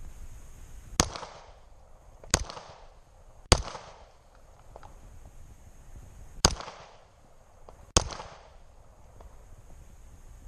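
Pistol shots fired one at a time, five in all at uneven intervals with a pause of about three seconds in the middle, each sharp crack trailing off in a short echo.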